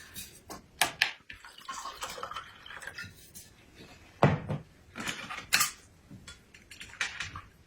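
Scattered clinks and knocks of dishes and utensils, with a couple of sharp ones about a second in and a cluster between about four and five and a half seconds.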